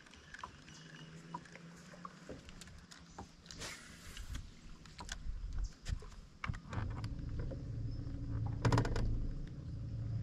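A boat motor hum comes up about two-thirds of the way through and keeps running, over scattered small clicks and knocks. There is a short rush of noise near the middle and another near the end.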